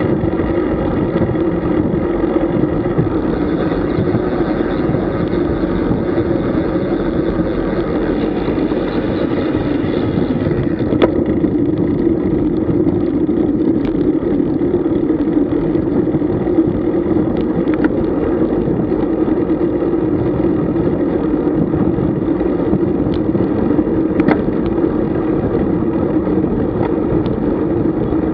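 Steady rushing wind and tyre noise from riding a road bicycle, heard on a camera moving with the bike, with a few faint clicks.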